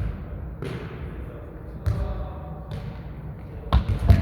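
Thumps of a jokgu ball in play, kicked and bouncing on the court: about six hits, the loudest two close together near the end.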